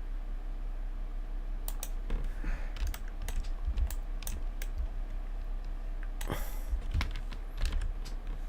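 Computer keyboard keys pressed in scattered, irregular keystrokes, a dozen or so, over a steady low electrical hum.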